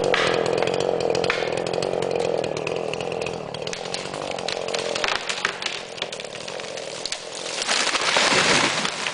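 Chainsaw running, dropping away after about three and a half seconds, followed by scattered sharp cracks of wood. Near the end comes a loud rushing crash of branches as the large old tree comes down.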